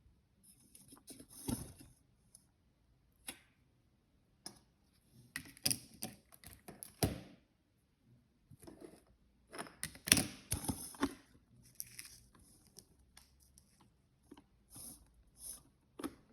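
Irregular clicks, taps and rustling of small objects being handled, in uneven clusters with short pauses between them.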